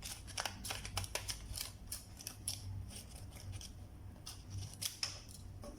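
Scissors cutting through a sheet of paper in a quick, uneven run of snips.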